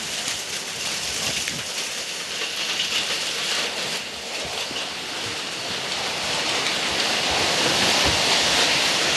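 Hail and rain pelting down in a thunderstorm, a dense hiss of strikes that grows steadily heavier.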